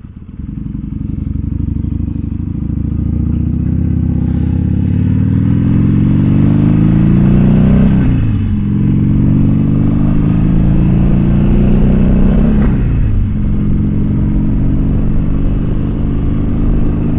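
Harley-Davidson Sportster 1200 Seventy-Two's air-cooled V-twin accelerating away from a stop, the engine note rising, dropping at an upshift about eight seconds in, rising again and dropping at a second upshift near thirteen seconds, then holding a steady cruise.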